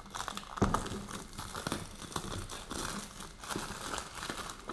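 Phone box packaging crinkling and rustling as it is opened, with a sharp knock about half a second in.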